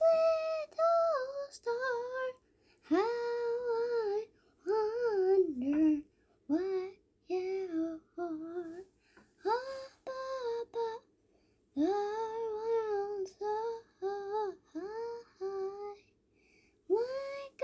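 A high voice singing a melody unaccompanied, in short sustained phrases with brief pauses between them.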